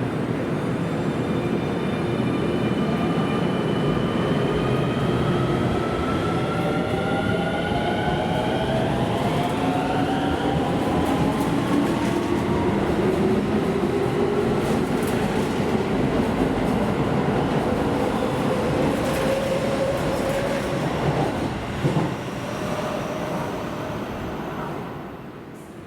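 Electric commuter train pulling out of the station, its inverter-driven traction motors whining in several tones that climb in pitch as it speeds up, over the rumble of wheels on the rails. The sound fades away near the end.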